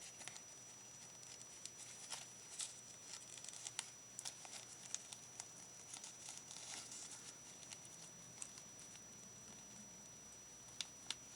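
Faint rustling and small scattered clicks as hands work a small metal bulb pin onto a paper craft, with two sharper clicks near the end.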